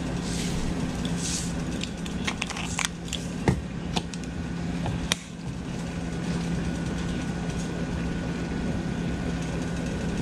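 A steady low machine hum, with a few light clicks and taps about two to five seconds in as a plastic measuring spoon and salt container are handled over the mixing bowl.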